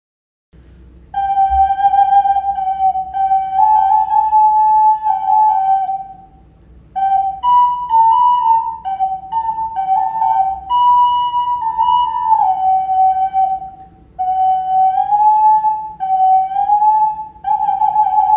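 Ceramic beluga-shaped clay whistle being played: a pure, flute-like tone stepping and sliding up and down between a few nearby notes, in three short melodic phrases with brief breaks between them.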